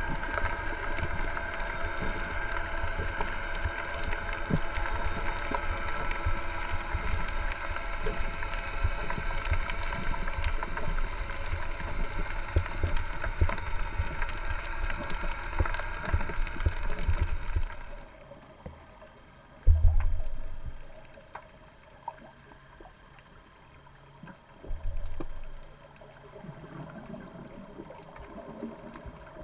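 Muffled underwater sound picked up through a GoPro's waterproof housing: a steady rush with a faint hum. A little past halfway it drops much quieter, and two dull low thumps follow.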